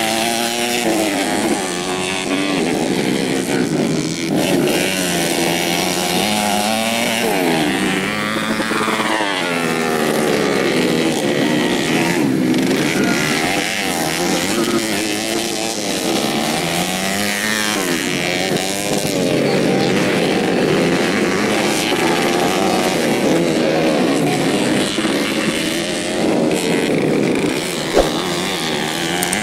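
Several modified 125 cc four-stroke underbone motorcycles racing, their engines revving up and dropping back over and over, several at once.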